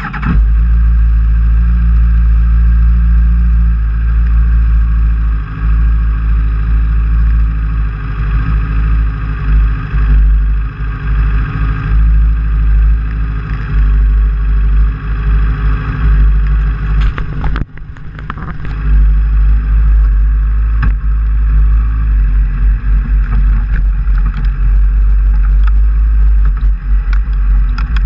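Racing sidecar outfit's engine catching suddenly and running loud and steady while stationary, heard close up from the bodywork. Partway through it drops briefly and picks back up.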